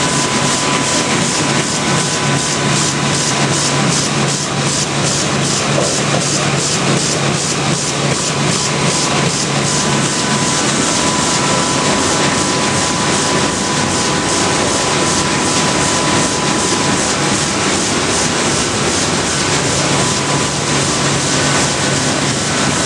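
Sheet-fed printing press running steadily, turning out printed sheets: a loud, even mechanical beat of about three strokes a second over a constant hum, with a faint steady whine.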